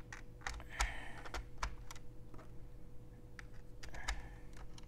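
Irregular light clicks and rustles of jumper wires being handled and plugged into a plastic circuit-trainer board, with brief bursts of rustling about a second in and again near the end.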